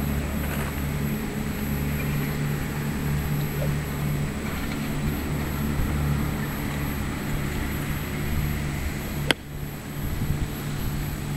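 A golf club striking a teed ball: a single sharp crack about nine seconds in. Under it runs a steady low mechanical hum.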